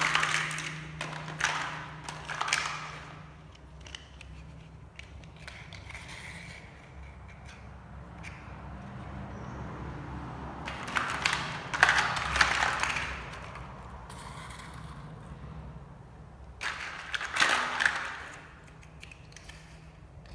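Small motors and gears of toy-scale machines whirring over a steady low hum, louder in three stretches: at the start, about halfway through, and near the end.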